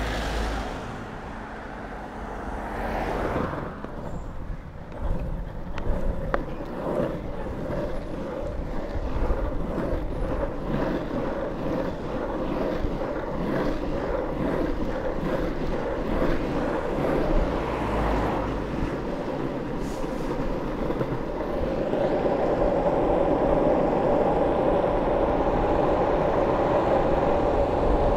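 Longboard wheels rolling over asphalt: a steady rumble that gets louder about three-quarters of the way through.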